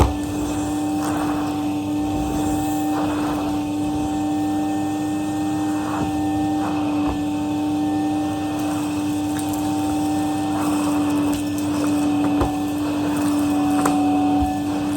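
Numatic Henry HVR200 vacuum cleaner running on its low setting, a steady hum, with repeated swishes and a few sharp clicks as it is worked over the mess.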